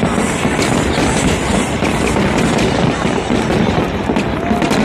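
Aerial fireworks display: many shells bursting in quick succession over a continuous crackle, a dense, unbroken barrage.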